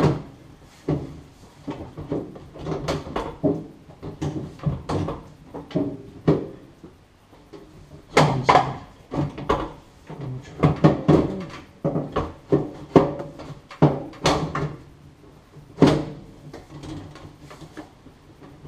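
Microwave's sheet-metal outer casing knocking, scraping and rattling as it is worked back over the chassis, a string of irregular knocks with the loudest about eight seconds in and again around fourteen to sixteen seconds in.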